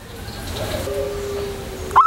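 A pause in a zebra dove's cooing: steady background noise with a faint held low tone. The dove's loud coo starts again right at the very end.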